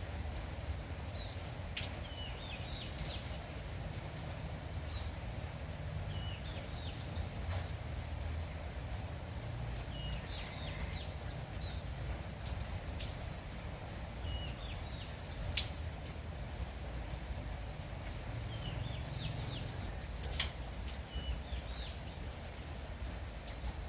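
Small birds chirping in short twittering phrases every couple of seconds over the steady hiss and rumble of light rain, with scattered sharp drips.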